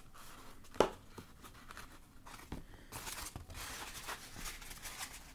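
Hands handling and pressing a folded EVA foam sheet: soft rubbing and rustling, louder from about halfway through, with a sharp click about a second in.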